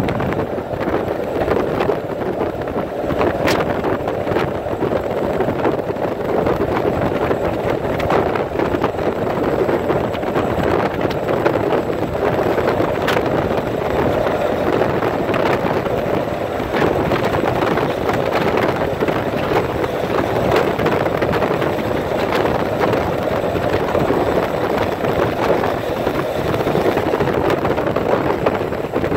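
Steady road noise of a vehicle travelling at highway speed: tyre and wind noise without letup, with now and then a faint tick.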